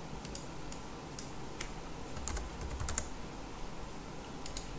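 Computer keyboard keys tapped about ten times at an uneven pace, short light clicks as text in a field is deleted and edited.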